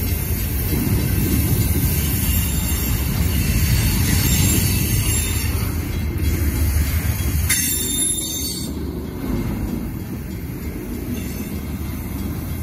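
Freight cars of a slow Portland and Western train rolling past, their wheels making a steady low rumble on the rails. Partway through, a brief high wheel squeal rises over the rumble.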